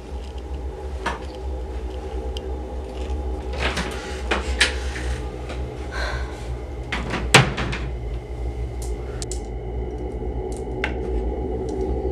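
Wardrobe door and clothes hangers being handled: a series of knocks and clacks, the sharpest about seven seconds in, over a steady low drone that slowly grows louder.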